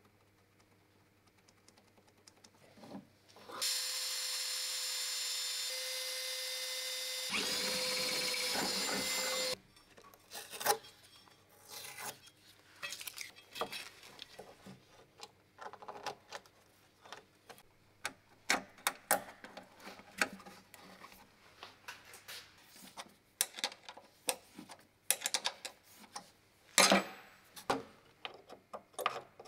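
A handheld power tool runs steadily for about six seconds, its pitch stepping up partway through, then cuts off. Scattered short clicks and knocks of parts being handled follow.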